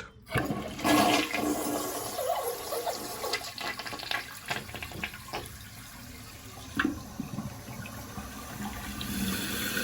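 Toilet flushing: a rush of water about a second in that tapers off. This is the test flush after a new flapper and fill valve were fitted to cure a running toilet.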